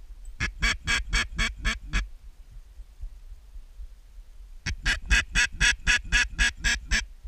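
Mallard duck call blown in two strings of hen quacks, about four quacks a second: a short string of about seven, a pause, then a longer string of about ten, calling to passing mallards.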